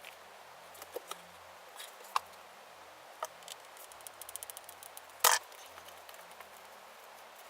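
Scattered light clicks and taps from the weathered pieces being fitted onto the prop staff, with a quick run of small ticks and then one sharper knock about five seconds in.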